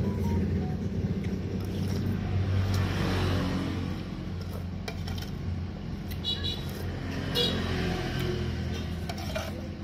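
Eating sounds from a bowl of hot fish-ball soup: breathy blowing on a spoonful, then a metal spoon clinking against the enamel bowl a few times as it scoops, over a steady low motor rumble.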